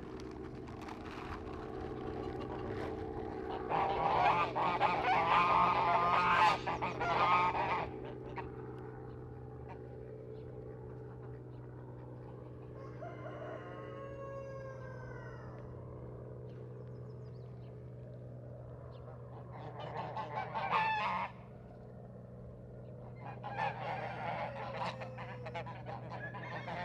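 Domestic waterfowl honking and calling in three loud bouts, with a few fainter chirps between them, over a steady low hum.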